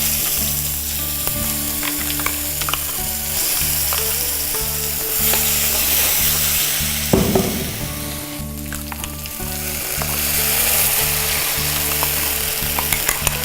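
Ground mint chutney sizzling as it hits hot tempering oil with popped mustard seeds and dried chillies in a kadai, stirred with a spoon that scrapes and clicks against the pan. A louder scrape comes about seven seconds in, and steady low tones run underneath.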